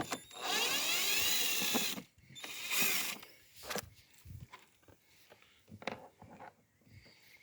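Nuts on a Gentech inverter generator's spark-plug cover being undone with a tool: a long ratcheting burst of about a second and a half, a shorter one about a second later, then light clicks of handling.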